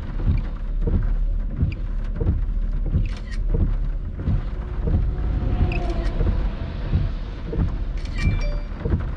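Inside a vehicle driving through a heavy thunderstorm: steady rain and road rumble, with a low thump repeating about every three-quarters of a second.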